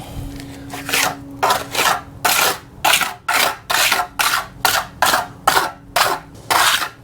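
Trowel scraping across a hydraulic cement patch in a foundation crack, in quick even strokes about two a second, starting about a second in.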